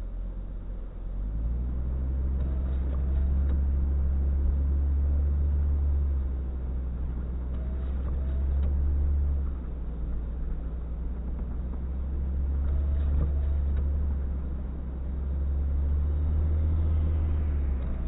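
Low rumble of motor vehicle engines, swelling and easing several times.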